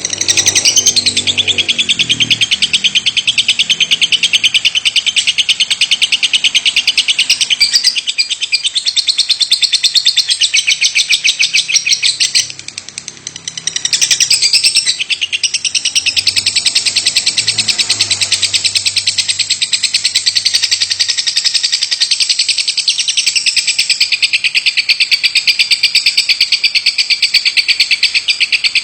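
A lovebird singing its long, unbroken chattering song, which keepers call 'batuk': a fast, continuous run of sharp high-pitched notes. It breaks off for about a second and a half near the middle, then resumes.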